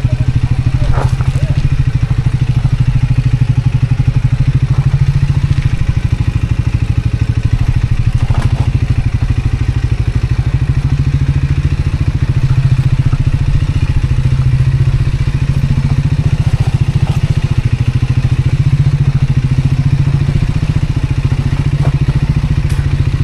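Motorcycle engine running steadily while riding over loose rock and gravel, with a few knocks and rattles from the rough track, two of them about one second and eight seconds in.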